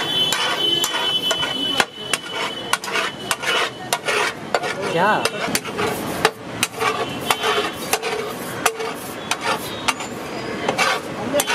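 Metal spatulas clanking and scraping on a large flat tawa griddle as pulao rice is chopped and turned, with quick, irregular strikes several a second.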